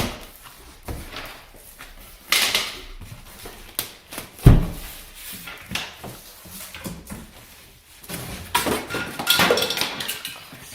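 A large cardboard shipping box being opened and handled: irregular bursts of scraping and tearing cardboard, with one heavy thump about four and a half seconds in.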